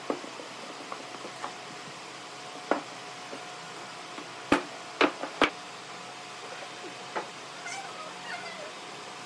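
Curved pine blocks knocking on a plywood worktable as they are handled and set down: scattered knocks, the loudest three in quick succession about halfway through. Faint wavering pitched calls near the end.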